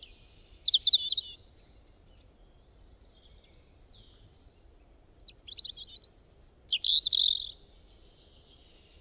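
Birds chirping: a quick run of high chirps right at the start, then a longer burst of rapid chirping about five and a half seconds in.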